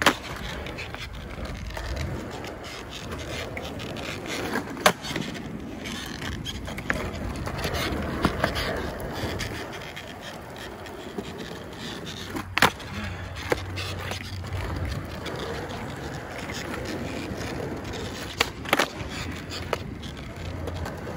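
Skateboard wheels rolling over rough concrete, with sharp clacks of the board hitting the ground: one at the start, one about five seconds in, one about thirteen seconds in, and two in quick succession near the end.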